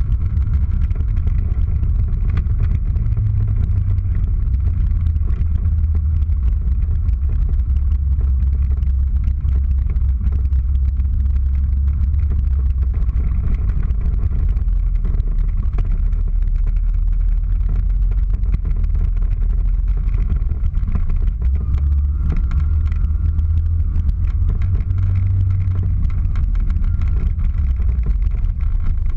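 Car engine running and tyres rumbling over snow and ice, heard from inside the cabin as a steady low drone with small rises and falls in engine pitch.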